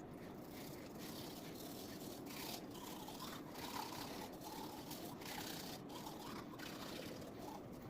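Toothbrush scrubbing teeth in quick, faint, repeated strokes, sped up to four times normal speed.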